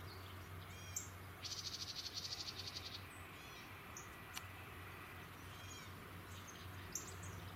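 Songbirds calling: scattered short chirps, with a rapid trill lasting about a second and a half starting about a second and a half in. A faint low hum runs underneath.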